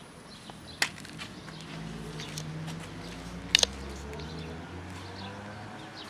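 A few sharp clicks and rattles of dry cat kibble against a plastic food container: one about a second in, a double click about three and a half seconds in, and fainter ticks between, over a low steady drone.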